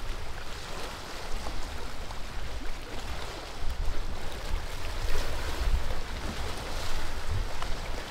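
Wind gusting across the microphone, with a rumbling low buffet, over a steady wash of lake water.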